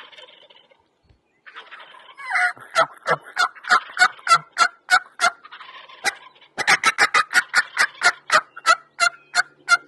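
Wild turkey calling in two long runs of evenly spaced, sharp yelp-like notes, about three to four a second, the second run starting about a second after the first stops.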